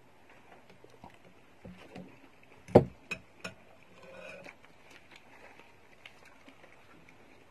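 A person chewing a large beef-tendon meatball (bakso urat), with soft mouth sounds and small scattered clicks. There is one loud sharp click a little under three seconds in, then two lighter clicks within the next second.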